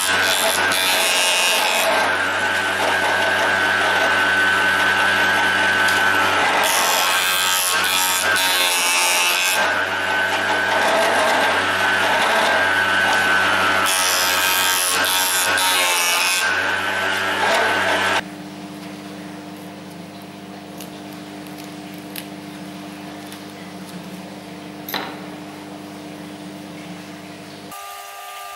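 Proxxon DH 40 benchtop thicknesser running, its motor humming steadily while wood is fed through three times, each pass a louder hissing cut as the cutter block shaves the strip. The sound stops abruptly about two thirds of the way in, leaving a quieter steady hum.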